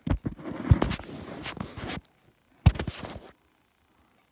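Handling noise close to the microphone: a few sharp knocks, then rubbing and scraping for about two seconds, then another knock with brief rubbing.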